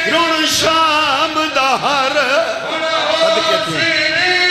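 A man chanting a mournful sung lament in long, wavering melodic lines, the style of a zakir's masaib recitation.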